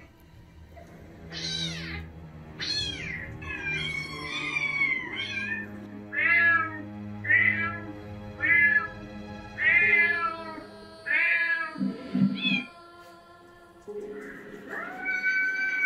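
Recorded cat meows played from a speaker: about ten short meows, roughly one a second, then a longer drawn-out cry near the end.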